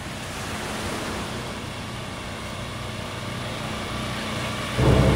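A steady, even hiss that slowly grows louder, with music coming in near the end.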